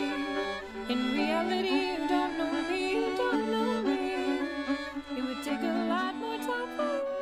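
Music led by a bowed fiddle, playing a wavering melody over held lower notes.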